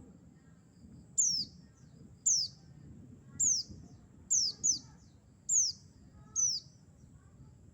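White-eye of the buxtoni race (pleci buxtoni) calling: seven short, high chirps, each sliding sharply downward in pitch, about one a second, with two of them closely paired. It is a lure call played to prompt white-eyes to answer.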